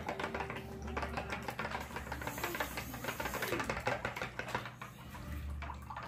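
Fork beating eggs in a small bowl, a fast steady run of clicking taps against the bowl, about six a second.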